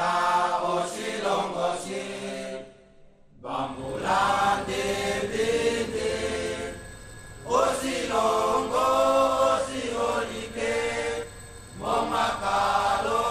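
Voices chanting in phrases a few seconds long, with short breaks between them.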